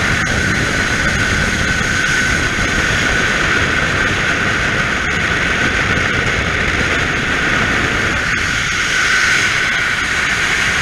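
Loud, steady freefall wind rushing over a skydiver's camera microphone. It cuts off suddenly near the end.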